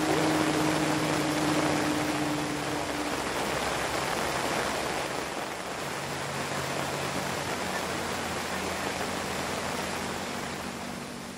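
Steady hiss of rain falling around a camp tarp, with a faint low steady hum underneath in the first few seconds.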